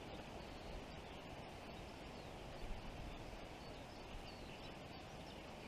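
Faint open-air ambience on a lake: a steady low hiss, with a few faint, distant bird chirps.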